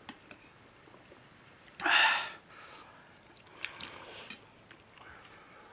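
Person eating: faint chewing and small mouth clicks, with one loud, short, breathy sniff-like noise about two seconds in.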